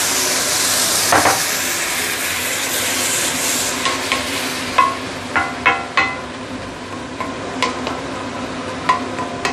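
Prawn broth sizzling and hissing in a hot stainless steel wok of fried vegetables, strongest at first and dying down over about four seconds. A wooden spatula then stirs the vegetables, its sharp knocks against the steel pan ringing briefly.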